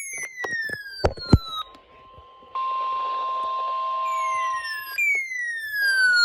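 Weather radio alert tones: a steady high alarm tone, overlaid by repeated whistle-like sweeps that fall in pitch. There are a few sharp clicks about a second in.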